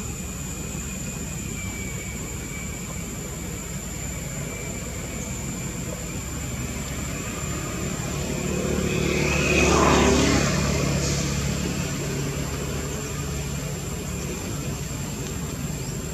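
A motor vehicle passing by, growing louder to a peak about ten seconds in and then fading away. Under it run steady background noise and a constant high-pitched tone.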